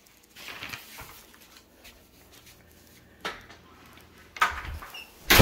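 A person walking across a tile floor, with scattered light knocks and rustles and a sharp, louder thump near the end.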